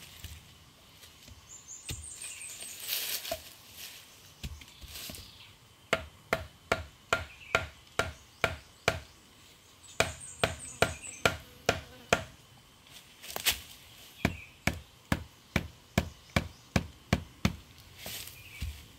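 Wood being chopped with a blade: sharp strikes about three a second, in several runs with short pauses between them.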